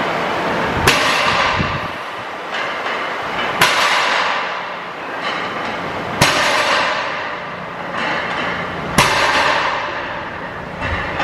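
A barbell loaded with iron plates is set down on a lifting platform at the bottom of each deadlift rep: four clanks about every two and a half seconds, each followed by a brief rattle of the plates, over steady background noise.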